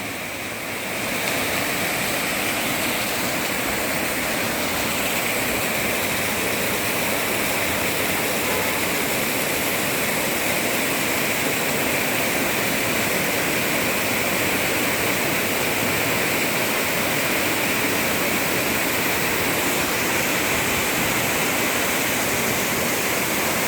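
Waterfall: water pouring and crashing in a steady, loud rush.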